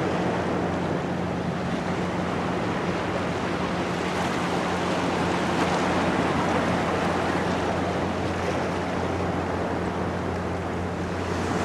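Ocean surf washing in and breaking along the shore, a steady wash of water noise with wind blowing over the microphone.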